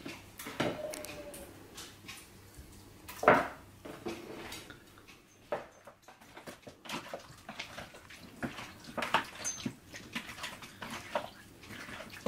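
Black slotted spoon knocking and scraping against a large white bowl as raw chicken pieces are stirred through a thick yogurt marinade: irregular taps, one louder knock about three seconds in, the taps coming more often in the second half.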